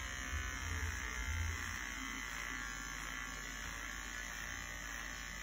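Electric hair clippers running with a steady buzz as they cut short hair, the low hum stronger in the first couple of seconds.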